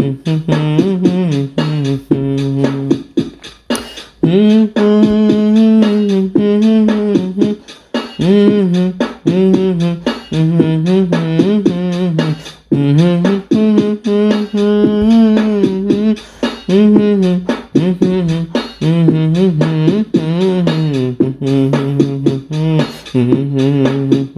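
Background music: a pitched melody over a steady, rhythmic beat.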